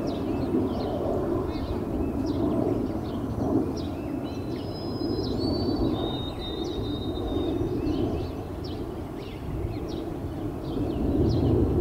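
Outdoor ambience: a steady low rushing noise with many short bird chirps and a few held whistles over it throughout.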